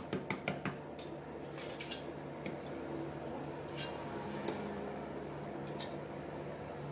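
Metal plates and brick pieces clinking and knocking together as they are packed around a tyre-press screw: a quick run of clicks at the start, then a few single clinks, over a steady low hum.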